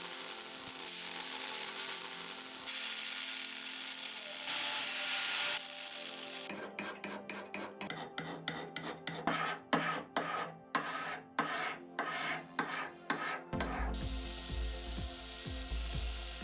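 Abrasive work on cast-iron water-pump parts. First a steady scouring hiss from a power tool, then about seven seconds of rasping hand strokes, roughly three a second. Near the end a power tool runs again with a low hum.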